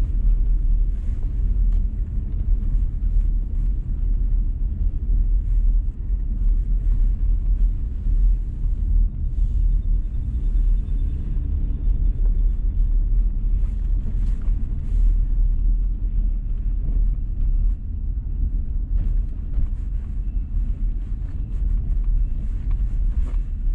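Car cabin noise while driving on a wet road: a steady low rumble of engine and tyres, with faint scattered ticks above it.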